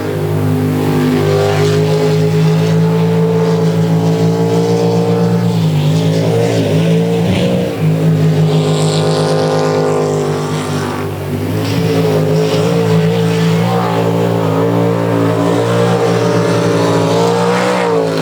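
Jet sprint boat engine running hard at high revs. Its pitch drops twice, about a third of the way in and again a little past halfway, then climbs back each time.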